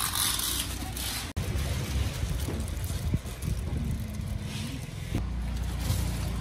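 Low rumble of passing street traffic, with a motor's hum wavering in pitch about four seconds in. The sound drops out for an instant just over a second in.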